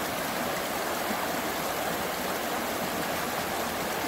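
Small mountain creek running, a steady, continuous rush of flowing water.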